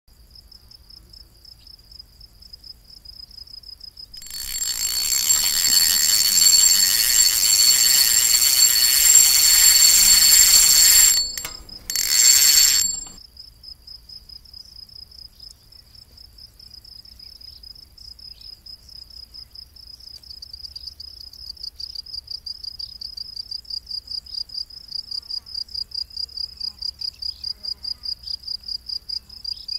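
Crickets chirping in a steady, high, pulsing trill that grows louder toward the end. About four seconds in, a loud hissing noise comes in for roughly seven seconds, cuts out, and returns for about a second.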